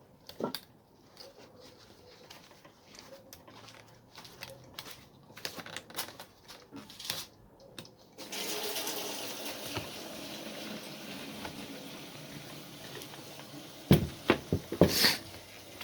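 Light clicks and taps of angle grinder switch parts being handled and fitted back together. About halfway through, a steady rushing hiss starts and carries on, and a few louder clicks and knocks come near the end.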